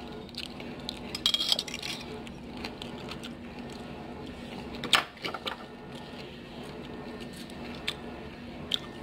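A fork clinking and scraping on a plate a few times while eating, sharpest about five seconds in, over the steady hum of a running washing machine.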